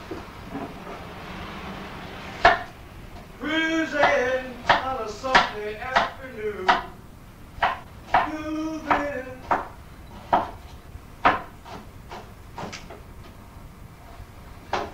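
A series of sharp knocks and clacks at irregular intervals, the loudest about two and a half seconds in, with a few indistinct voice sounds among them.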